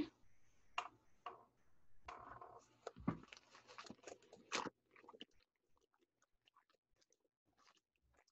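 Faint crinkling and clicking of packaging and specimens being handled, with a dull thump about three seconds in and a sharper click a little after; the handling stops about five seconds in.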